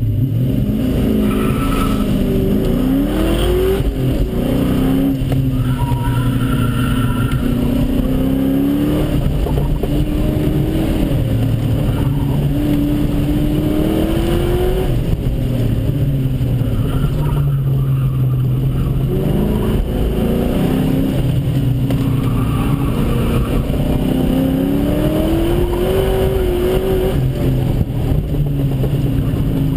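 A Ford Mustang's engine heard from inside the car during an autocross run. Its note rises several times as the car accelerates, then drops each time it shifts or lifts for the next corner.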